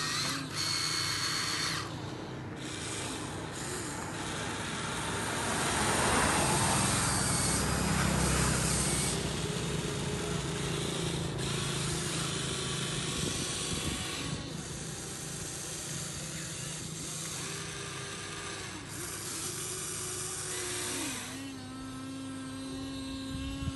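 Huina radio-controlled excavator's small electric motors whining as the boom, arm and bucket move, the whine stepping up and down in pitch as each motion starts and stops. A louder gritty scraping swells from about six to nine seconds in as the bucket digs into the sand.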